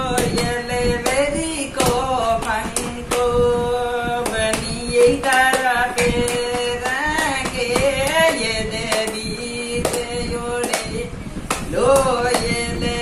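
A woman singing a Marwari wedding folk song unaccompanied, holding long, wavering notes and keeping time with frequent claps of her own hands.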